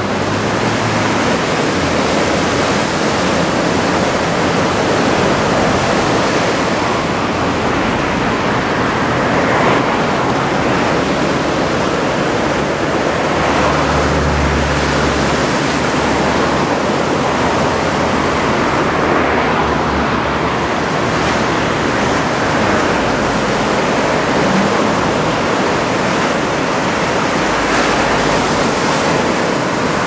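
Heavy typhoon swell breaking and washing toward shore: a loud, steady rush of surf.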